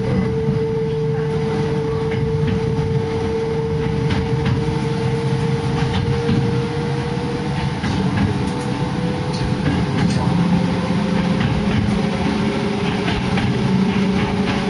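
Hakone Tozan Railway electric train running, heard from inside the car: a steady whine and low rumble, with light clicks of the wheels on the rails. The whine drifts slightly lower, and a deeper hum joins it about ten seconds in.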